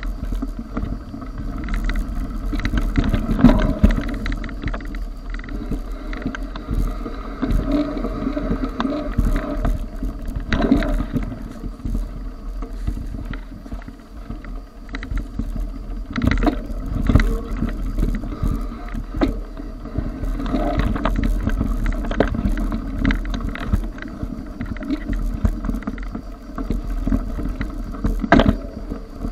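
Mountain bike ridden over a dirt forest trail, heard from a camera carried along on the ride: continuous tyre-on-dirt noise and frame rattle, with frequent knocks and clatters as the bike goes over bumps.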